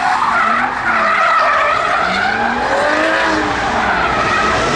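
A BMW drift car sliding sideways, its tyres screeching over an engine held at high revs, with the pitch rising and falling several times.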